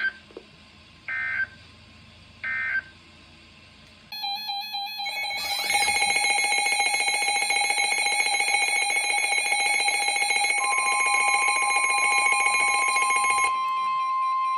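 Emergency Alert System broadcast tones: three short buzzy digital data bursts about a second apart, marking the end of one alert. About four seconds in, a loud steady electronic alert tone for the next warning starts and holds; a second steady, slightly higher tone joins it after about ten seconds and outlasts it.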